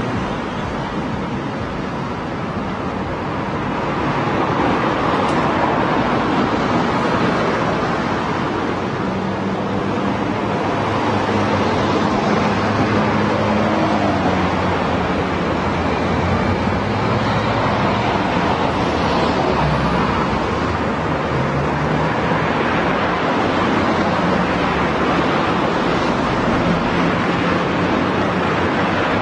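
Steady road traffic noise: a continuous wash of passing vehicles, with engine hum from cars moving past through the middle.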